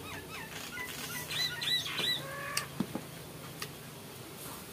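A bird calling nearby: a quick run of short, high repeated chirps over the first two seconds or so, followed by a couple of faint clicks.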